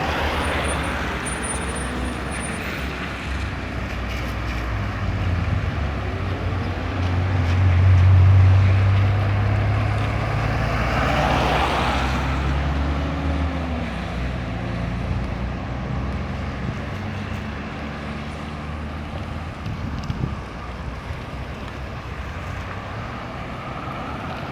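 Road traffic passing: engines and tyre noise of cars and larger vehicles. An engine is loudest about eight seconds in, a vehicle sweeps past close by around eleven seconds, and the traffic then fades.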